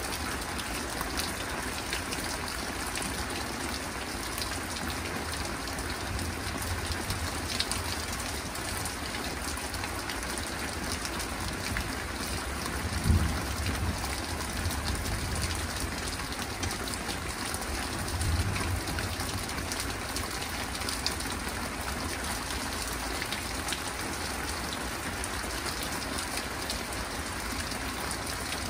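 Steady rain falling on surfaces during a thunderstorm. Low rumbles of thunder swell up about thirteen seconds in, the loudest moment, and again about eighteen seconds in.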